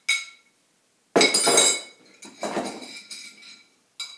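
A spoon clinking against a small ceramic bowl, with two longer, louder scraping clatters about one and two seconds in, and another light clink near the end.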